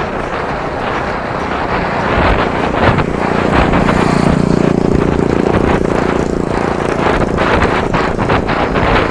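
Wind rushing over the microphone of a moving bicycle, with a motor vehicle's engine hum building about three seconds in, loudest for a few seconds, then fading away as the vehicle passes.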